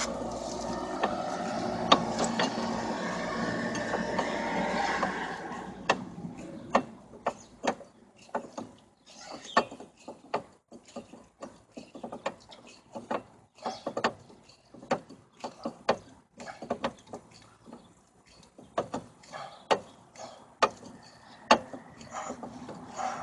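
Brake caliper piston compressor tool being screwed in against an old pad, forcing the caliper piston back into its bore to make room for new pads. A steady creaking scrape for about five seconds, then a run of sharp, irregular clicks as the tool is turned.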